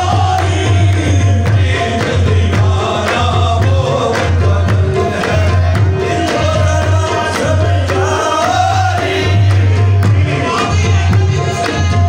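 Qawwali music: voices singing with a chorus over a steady beat of percussion.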